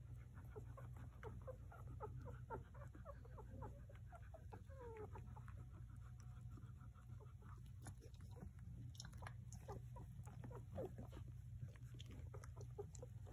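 Newborn golden retriever puppies squeaking and whimpering faintly: a steady string of short, high squeaks with a longer whine about five seconds in.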